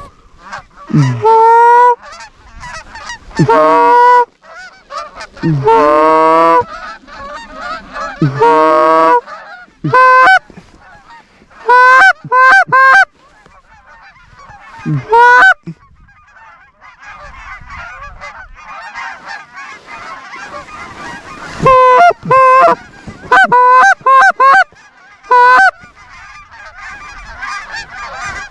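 Canada goose honking: loud, close two-note honks, each breaking sharply upward. A few long wavering honks are followed by quick runs of short clucks, and from about halfway a chorus of many geese calling together rises underneath.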